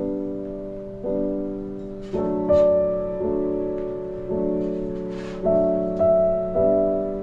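Background piano music, gentle chords struck about once a second, each ringing and fading before the next.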